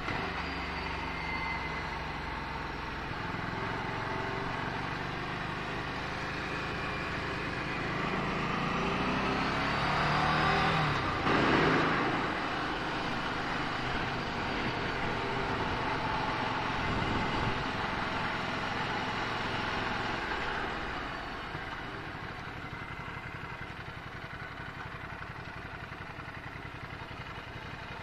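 Ducati Scrambler Sixty2's air-cooled L-twin engine running at low speed in slow traffic, with road and wind noise. It revs up with a rising pitch about ten seconds in, then settles back and grows quieter after about twenty seconds.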